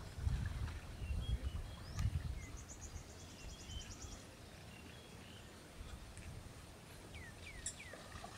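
Outdoor ambience with small birds calling: a rapid high trill about two to four seconds in, and a few short falling chirps near the end. Under them is a low rumbling noise, strongest in the first couple of seconds.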